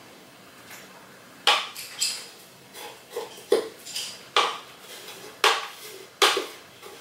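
A measuring spoon clinking against a small glass bowl about eight times, in irregular sharp taps, while xanthan gum powder is scooped and tipped into the bowl.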